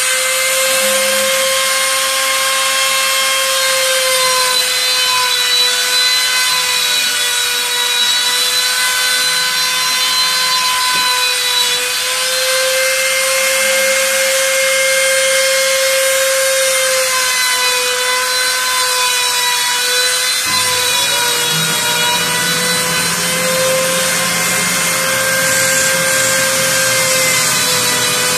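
Rotary-tool spindle on a homemade CNC mill running at high speed and cutting into a wooden board. It gives a steady high whine whose pitch sags a little and recovers as the bit takes load. A lower hum joins about two-thirds of the way in.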